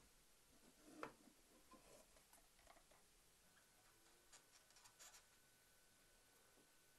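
Near silence with a few faint, short clicks and rustles, the clearest about a second in and a small cluster near the middle.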